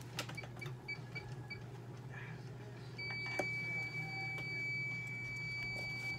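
An electronic device beeping: a run of short high beeps, then about three seconds in a long steady high beep that holds on. A few light clicks and a steady low hum sit underneath.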